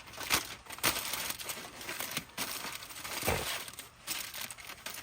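Butter and meat drippings sizzling and crackling in a pan on the grill, with scattered sharp clicks and clinks and a dull bump about three seconds in.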